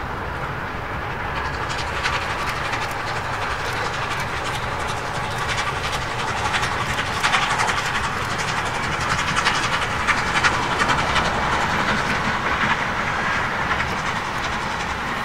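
Norfolk & Western J-class 611, a 4-8-4 steam locomotive, passing with its passenger train: a steady rumble with rapid clickety-clack from the wheels. The sound builds and is loudest about halfway through as the engine and the first cars go by.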